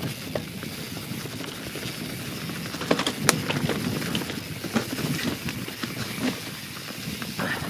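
YT Jeffsy 27 mountain bike riding fast down a rough, wet trail: steady tyre noise over leaves, dirt and roots with frequent clacks and knocks from the bike over the bumps, the sharpest about three seconds in.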